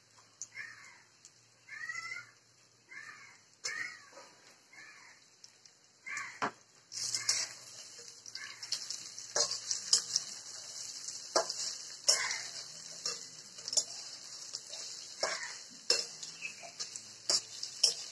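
Boiled potato pieces frying and sizzling in oil in a metal pan, with a metal spatula stirring and clacking against the pan over and over. The sizzle grows louder about seven seconds in. Crows caw repeatedly during the first few seconds.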